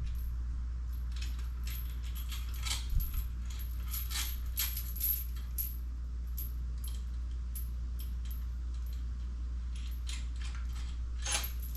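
Small metal hardware and tools clinking and tapping as they are handled, in scattered bursts through the first half and again near the end, over a steady low hum.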